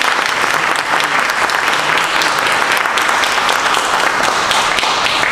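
A small seated audience clapping: steady applause, many hands at once.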